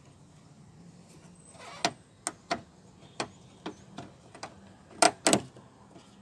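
Sharp clicks and knocks of car door handle parts being worked loose and handled: about nine spaced clicks, a brief scraping rub just before two seconds in, and the two loudest knocks close together about five seconds in.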